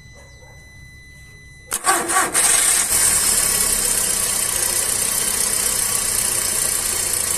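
Car engine cranked by the starter and catching about two seconds in, then running steadily. It is the engine's first start after a new spark plug went into the cylinder whose old plug had fouled with burnt oil. A faint steady tone sounds before the start.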